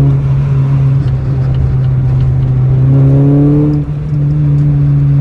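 Mini Cooper with a sports exhaust manifold driving under acceleration: a steady low engine hum with the engine note rising in pitch twice. It breaks off briefly just before four seconds in, as at a gear change, then holds steady.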